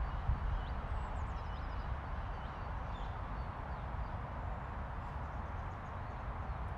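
Outdoor ambience: a steady low rumble with a few faint bird chirps in the first few seconds.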